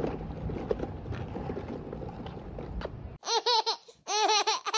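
Outdoor background noise, then about three seconds in a sudden switch to a baby laughing in two quick runs of high, bouncing laughs.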